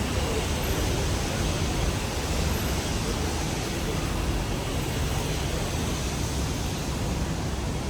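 Hong Kong double-decker tram running, heard from on board in the rain: a steady low rumble under an even hiss, with no separate knocks or bells.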